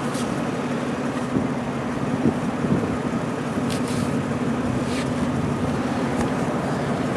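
A steady low engine hum, like a motor idling, over a broad hiss, with a few faint clicks.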